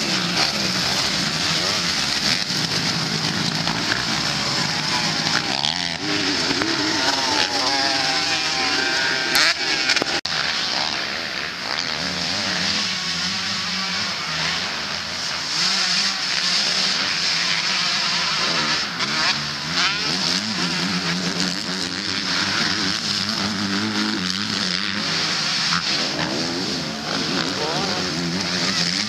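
Several motocross bikes racing, their engines revving up and down again and again as they accelerate and back off around the dirt track.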